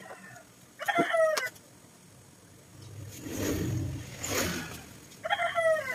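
A rooster crowing twice: short falling calls about a second in and again near the end. A vehicle rumbles past in between.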